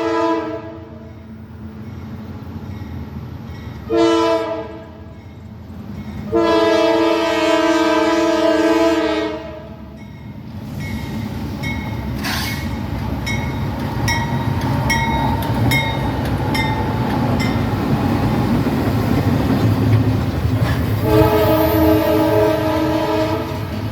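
Norfolk Southern locomotive horn sounding a high-pitched chord in several blasts: one ending just after the start, a short one about four seconds in, a long one of about three seconds, and another near the end. Between blasts the train rumbles steadily past, with a run of evenly spaced clicks in the middle.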